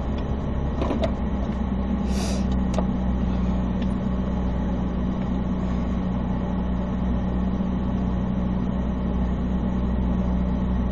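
Car engine idling steadily while stopped, heard from inside the cabin as a low, even drone, with a few faint clicks about one to three seconds in.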